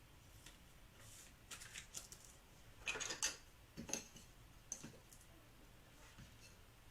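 Baseball trading cards being handled: a few short scraping and clicking rustles as cards are slid and set down. The loudest cluster comes about three seconds in.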